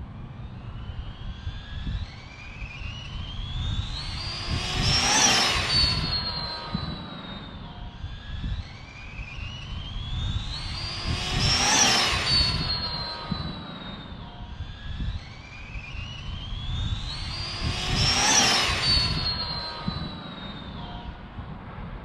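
Arrma Felony twin-motor RC car's electric motors whining as it speeds past at about quarter throttle, the pitch climbing as it nears and dropping sharply as it goes by. This happens three times, about seven seconds apart, over wind rumble on the microphone.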